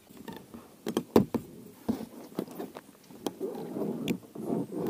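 Handling noises in an inflatable boat: a string of sharp knocks and clicks with rustling, as a lure retriever on its cord is worked down a fishing line to free a lure snagged on a submerged snag.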